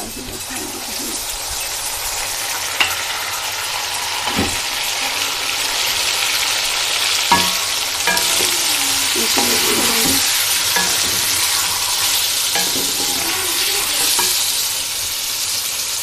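Fresh tomato paste sizzling in hot oil over fried taro root (arvi) in a steel pan while it is stirred with a spatula: a steady frying hiss that grows louder in the middle, with a few sharp knocks of the spatula against the pan.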